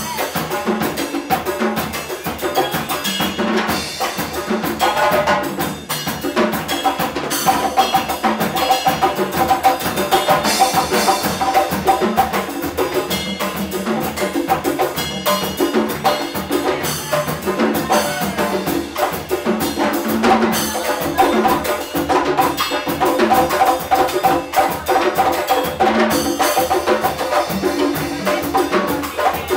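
Live percussion trio of congas, a hand drum and a drum kit with cymbals, playing a dense, unbroken groove together.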